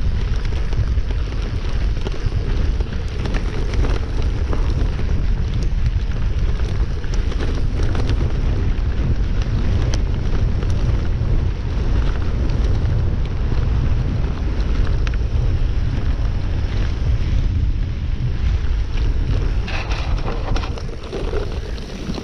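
Wind buffeting a handlebar-mounted camera's microphone as a bicycle rolls quickly down a rutted dirt track, a steady low rumble with the tyres' noise on the dirt and many small clicks and rattles throughout.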